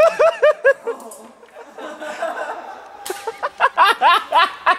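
A person laughing in quick, high-pitched bursts: one run of cackles at the start and another about three seconds in.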